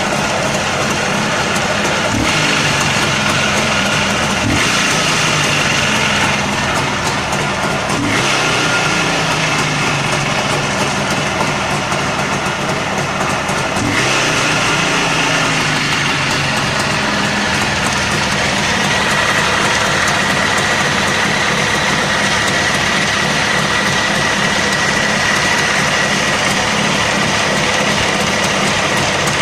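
JAWA 350/638's two-stroke twin engine running, revved briefly a few times in the first half, then settling to a steady run. It carries a knock from the right cylinder that has grown louder over the past month; the owner does not know its cause.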